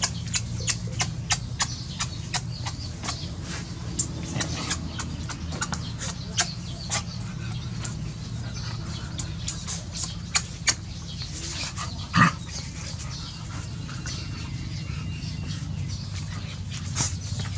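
Puppies playing around their mother, with one short puppy yelp about two-thirds of the way through. Underneath runs a steady low hum and a string of sharp ticks, several a second at first and sparser later.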